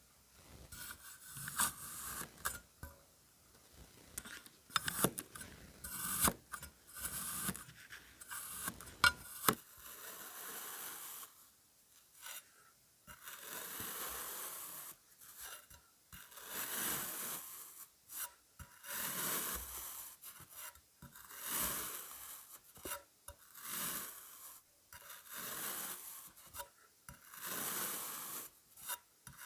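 Kinetic sand being cut and scraped with a blade. Sharp crunchy clicks come in the first several seconds, then a steady series of scraping strokes, roughly one every second and a half.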